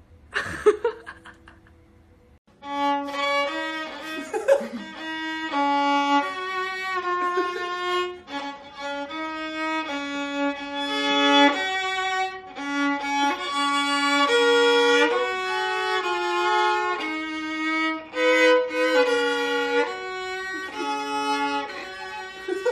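Acoustic violin bowed in a slow melody of held notes, starting about two and a half seconds in. A short loud sound comes just before it, near the start.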